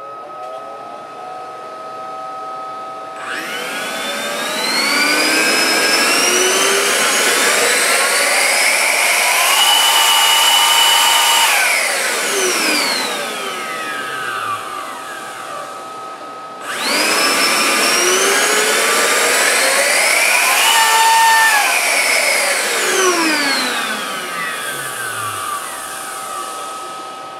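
Home-built 3D-printed two-stage electric supercharger, an ESC-driven electric motor spinning two plastic impellers, spooling up to a high-pitched whine and winding down twice: the first run climbs over several seconds, holds, then coasts down about halfway through; the second spools up faster and coasts down near the end. It runs at about 60,000 rpm, making about 5 psi of boost at no flow. A faint steady tone sounds throughout.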